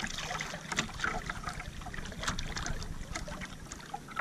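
Seawater lapping and slapping against the hull and outrigger of a small outrigger canoe, with irregular small splashes and knocks.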